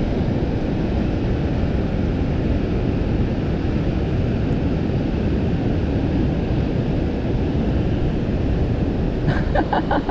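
Strong wind buffeting the microphone over surf on a rocky shore, a steady low rumble. About nine seconds in, a rapid run of even clicks starts from the Daiwa Alphas SV TW baitcasting reel while a fish is on the line.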